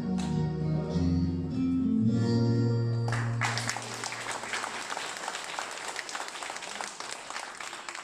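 The closing bars of a song's backing music, which stops about three and a half seconds in. Audience applause starts as the music ends and goes on, slowly dying down.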